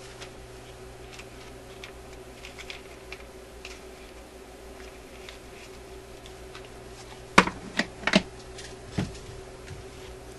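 Light clicks and taps of small parts and tools being handled on a workbench, with a cluster of sharper clacks about seven to eight seconds in and another near nine seconds, over a steady low hum.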